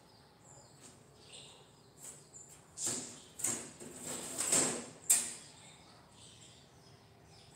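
Thin sheet-metal squares being scraped and shifted on a workbench while their corners are marked out. Light scratching and tapping, with a run of louder scraping strokes from about three to five seconds in.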